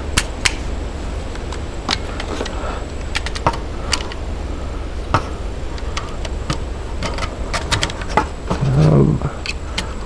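Steel-cased 9mm cartridges being pressed one by one into a Hi-Point 995 carbine's 20-round magazine: a run of sharp, irregular metallic clicks.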